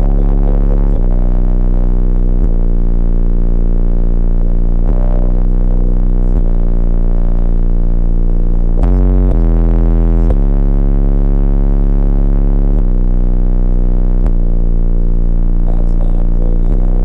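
Very loud synthesizer bass music with no vocals, played through a competition car audio system with four 15-inch subwoofers in a bandpass enclosure. Deep, sustained bass notes change about every one to two seconds, with a short wobbling run about nine seconds in.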